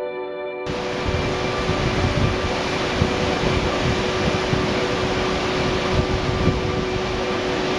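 Wind buffeting a camera microphone: a dense rushing noise with gusty low rumbles that starts abruptly under a second in. Soft ambient music with held tones continues underneath.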